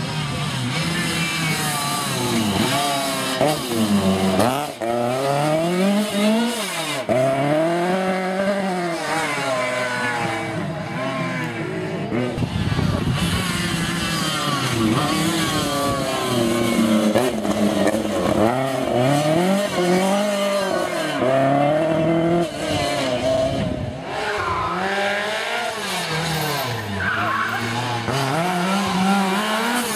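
Lancia 037 rally cars passing one after another, each supercharged four-cylinder engine revving hard. The pitch climbs, drops and climbs again over and over through gear changes and lifts.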